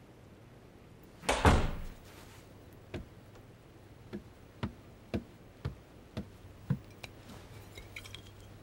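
A door bangs about a second in. Then comes a single thud and six even footsteps on a wooden floor, about two a second. Near the end there are faint glass clinks as a bottle is picked up.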